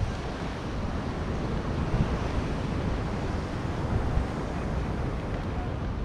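Steady surf noise from the sea, mixed with wind rumbling on the microphone.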